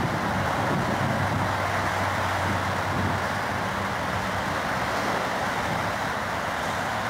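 Boeing 747's four jet engines at takeoff thrust as the airliner climbs away: a steady, loud roar that eases slightly toward the end.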